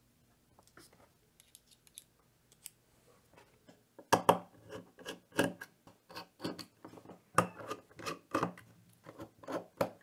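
Precision screwdriver unscrewing the small screws of a metal electronics case: a few faint clicks as a bit is picked from the kit, then from about four seconds in a run of sharp, scratchy metal clicks, one or two a second, as the screws turn.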